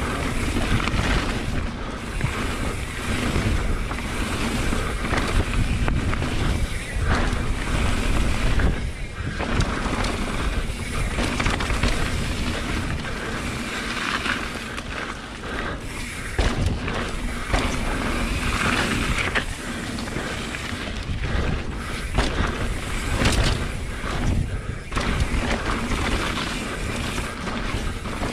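YT Capra mountain bike on Vittoria tyres descending a rough, rocky trail at speed: tyres rumbling and the bike clattering with irregular knocks as it hits rocks and roots, under a steady rush of wind on the microphone.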